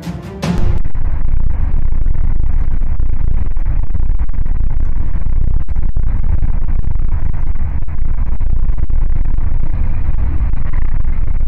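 Background music cuts off about half a second in, giving way to a loud, steady low rumble of road and engine noise heard from inside a car driving along a highway.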